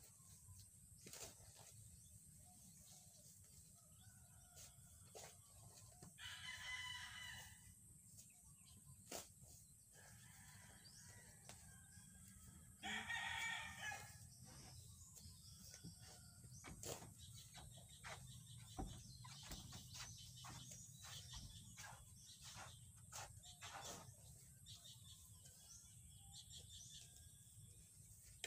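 A rooster crows twice, about six and thirteen seconds in, each crow about a second and a half long. Between the crows come scattered faint knocks of a hoe chopping into soil.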